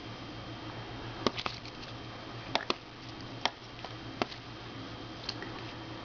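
Scattered light clicks and taps from handling, one every second or so, over a steady low hum.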